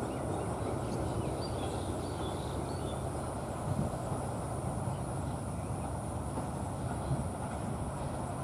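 Bangladesh Railway Class 3000 diesel-electric locomotive running steadily as it approaches at speed on a through run, with a constant low engine rumble.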